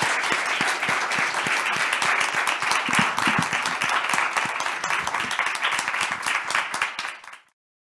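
Audience applauding steadily, many hands clapping at once; the applause cuts off suddenly about seven seconds in.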